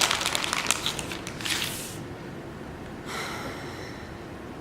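Plastic packaging of a soft-plastic fishing bait crinkling and crackling as it is handled, a rapid run of clicks that stops about two seconds in. About three seconds in comes a short breath through the nose.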